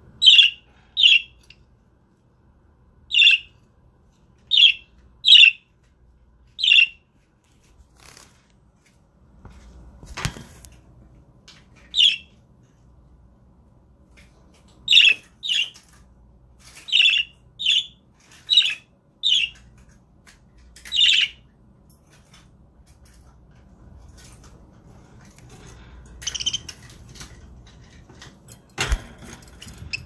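Budgerigar chirping: short, sharp, high calls, singly and in quick pairs, about fourteen in all with a pause in the middle. Two brief knocks, one about ten seconds in and one near the end.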